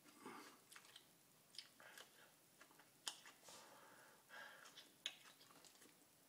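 A person chewing raw garlic cloves, with quiet wet crunching and mouth sounds. Two sharp clicks stand out, about three and five seconds in.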